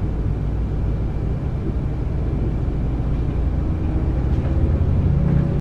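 Bus engine and road noise heard from inside the passenger cabin: a loud, steady low rumble, the engine note growing a little stronger near the end.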